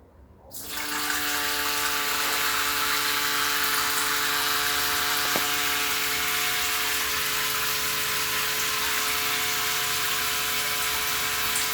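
Lorenzetti Belo Banho Ultra electric shower turned on about half a second in: water rushing through it with a steady whistle-like hum on top. The owner takes the whistle for the new comb-shaped heating element vibrating in the water flow, even at low water pressure.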